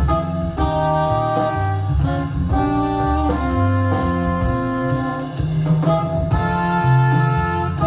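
Music with held brass-like chords, a moving bass line and a steady beat, played back from a cassette tape on a Sony TC-KA7ES deck.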